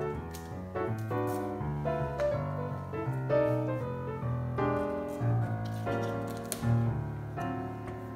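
Background piano music, a melody moving over a steady bass.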